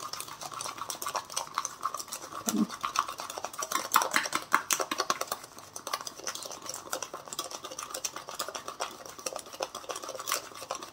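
Metal spoon beating instant coffee, sugar and a little water in a ceramic mug: fast, continuous clicking and scraping of the spoon against the mug as the coffee is whipped into foam.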